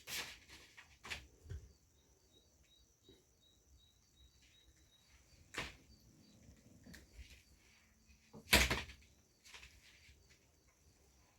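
Scattered clicks and knocks of LED backlight strips being handled and set in place on a TV's reflector panel, the loudest knock about two-thirds of the way through.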